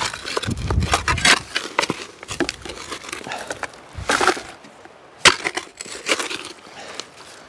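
Shovel digging into mossy creek-bank turf and partly frozen soil: the blade crunches and tears through roots and earth in repeated strokes. A load is knocked into a bucket about four seconds in.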